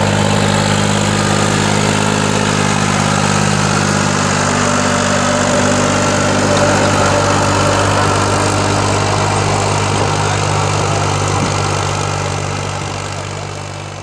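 Ford 3630 tractor's diesel engine running steadily while it pulls a Shaktiman rotavator tilling the soil. The sound fades away over the last few seconds.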